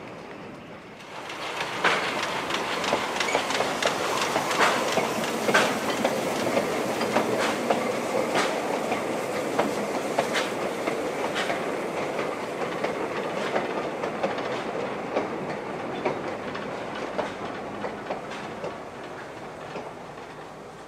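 Wagons of a narrow-gauge steam freight train rolling past, their wheels clicking and knocking over rail joints in an uneven clickety-clack. It gets louder about a second in and fades slowly near the end.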